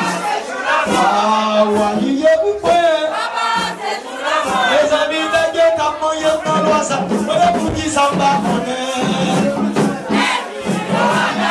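Haitian Vodou ceremonial song: voices singing together over steady, evenly paced percussion strokes.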